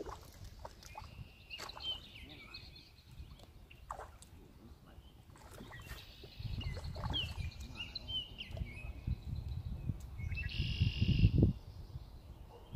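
Small birds chirping in short, sweeping notes. A low rumble sets in halfway through and is loudest near the end, where a buzzing sound lasts about a second.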